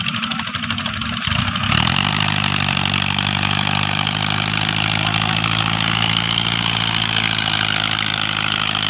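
Mahindra Arjun tractor's diesel engine revving up about a second and a half in, then running hard at steady high revs while pulling a trailer through deep, soft sand under heavy load.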